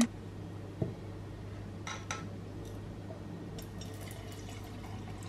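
Water poured from a jug into a glass over chai latte powder, with a few short clicks of a spoon against the glass.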